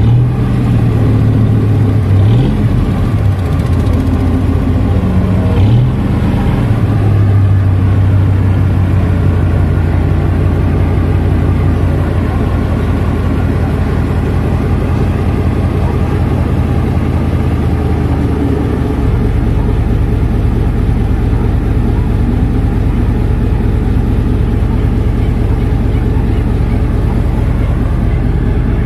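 Boat's inboard engine running hard under load while maneuvering a barge, its revs rising briefly twice in the first few seconds. About two-thirds of the way through it settles into a lower, steadier running sound.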